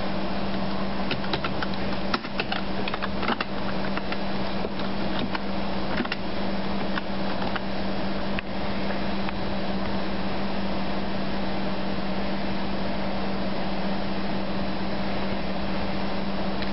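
Computer fans running with a steady low hum, and a run of keyboard key clicks during the first eight seconds or so as text is typed.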